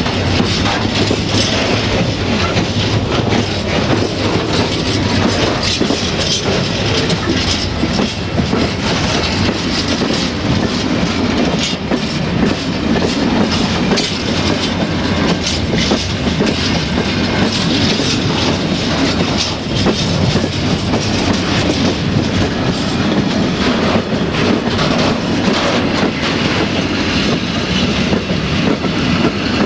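Freight wagons rolling past at close range: steel wheels rumbling along the rail, with a steady scatter of clicks and knocks from the wheels and running gear.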